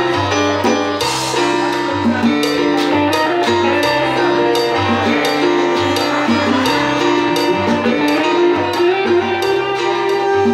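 Live band playing an instrumental passage: congas keep a steady rhythm under guitar, chords and a moving bass line, with a crash about a second in.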